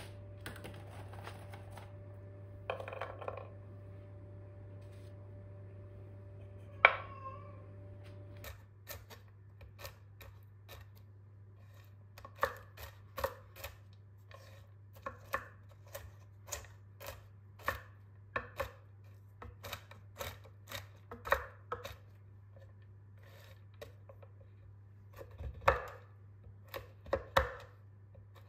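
Chef's knife chopping walnuts and a bar of chocolate on a bamboo cutting board, with irregular knocks about one or two a second from about nine seconds in. Earlier there is a single sharp knock, the loudest sound, near seven seconds, over a steady low hum that stops a little after eight seconds.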